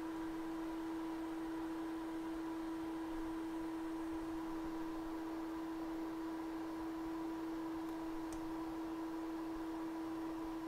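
A steady, even hum at one pitch, with a fainter higher tone above it and no change in level.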